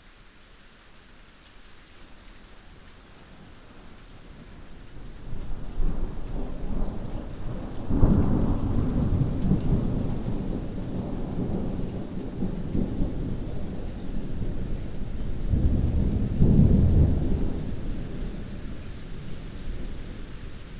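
Heavy rain falling steadily, with a long roll of thunder. The rumble builds about five seconds in, breaks loud about eight seconds in, swells again a little past the middle, then fades away near the end.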